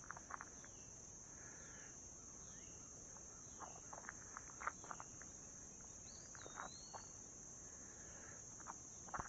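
Steady high-pitched insect chorus, with a few soft footsteps or rustles scattered through it and a short wavering whistle about six seconds in.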